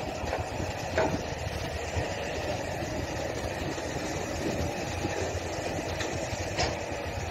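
Heavy truck engines running at a steady idle, a low continuous drone.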